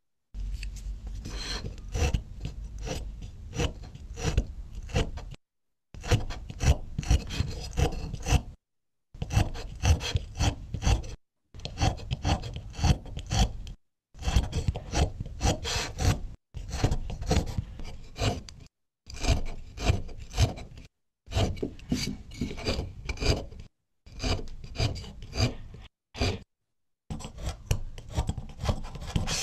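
Soundtrack of an animated film playing through a video call: scratchy noise full of sharp clicks, in stretches of two to three seconds, each cut off by a moment of dead silence.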